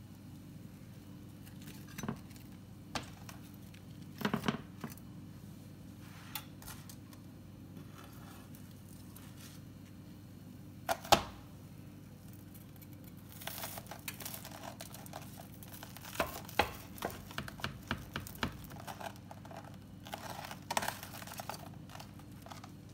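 Knife sawing through toasted grilled-cheese bread with crunchy, crackling strokes in several clusters during the second half, between knocks and clicks of utensils and sandwiches against plastic and glass food containers, one sharp knock loudest about halfway through. A low steady hum underneath.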